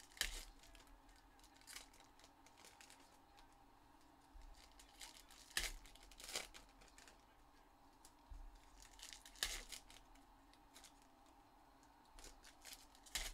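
Foil wrappers of Donruss Elite football card packs being torn open and crinkled by hand, in short crackly bursts a few seconds apart.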